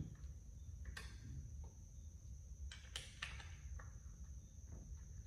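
A few faint clicks and taps from hands assembling a wooden dining chair with an Allen key, a cluster of them about three seconds in, over a low steady hum.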